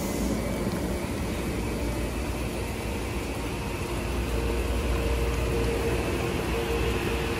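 Metro-North M8 electric multiple-unit train moving slowly past at close range: a steady low rumble with the hum of its motors and rooftop ventilation units. A faint steady whine joins about four seconds in.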